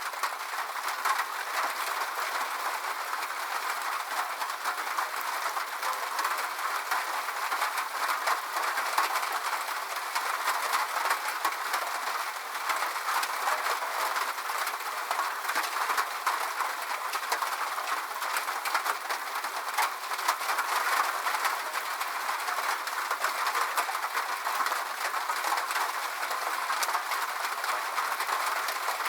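Steady rain on a metal roof: a dense, even patter of countless small drop ticks on the sheet metal.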